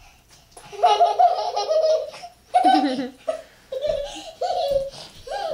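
A young child laughing hard in several bursts, as if being chased or tickled.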